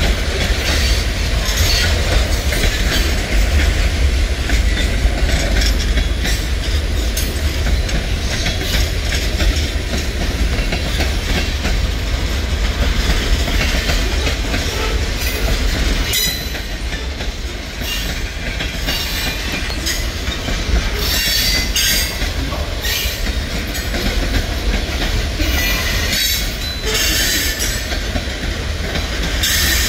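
Freight cars of a Norfolk Southern mixed freight train (tank cars, covered hoppers, boxcars) rolling past, with a steady deep rumble and the clatter of wheels over the rails, and brief high-pitched wheel squeals in the second half.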